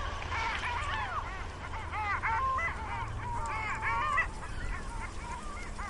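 A flock of ducks on a pond calling over one another in short, honking quacks, busiest in the middle and thinning out near the end, over a steady low rumble.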